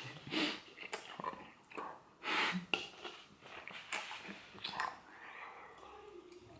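A person chewing an enormous mouthful of about 100 pieces of gum: wet mouth noises, clicks and breaths in irregular bursts. The wad is so thick at the back of the throat that it nearly blocks his airway.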